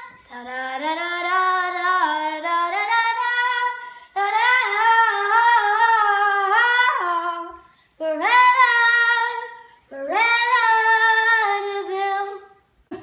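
A young girl singing solo in four sustained phrases with long held notes, briefly pausing between them.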